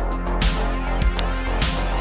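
Background music with a steady kick-drum beat, a little under two beats a second.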